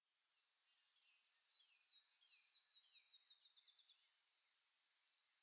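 Very faint, high-pitched bird chirping over a steady high hiss: scattered chirps, then a quick run of falling notes at about eight a second, from about two to four seconds in.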